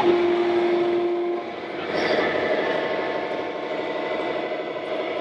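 A horn sounds once, one steady note held for about a second and a half, over a constant background din. It is most likely the horn of an RC model truck's sound module.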